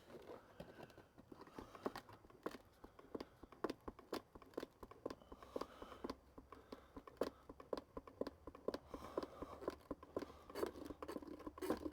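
Faint, irregular clicks and plastic crinkling from handling a hand oil pump and plastic gear-oil bottles.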